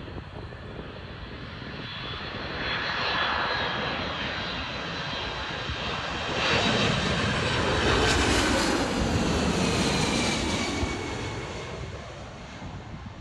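Twin-engine jet airliner passing low overhead on final approach with its landing gear down: the engines' roar and whine swell twice, loudest in the second half, the whine slowly falling in pitch as the plane goes by, then fading near the end.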